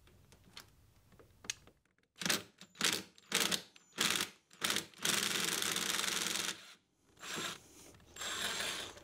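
Power drill/driver with a T25 bit backing out a screw from a Tesla Model S battery pack's ski rail cover. It runs in several short bursts, then steadily for about a second and a half, then in two more short bursts near the end.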